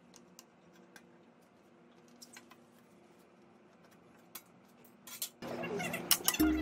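A few faint, sharp clicks of small metal parts being handled. Near the end come louder clicks and clinks, with background music starting up.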